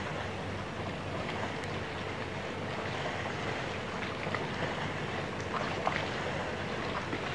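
Harbour ambience: water lapping, wind on the microphone and a faint steady low hum, with a few small scattered ticks.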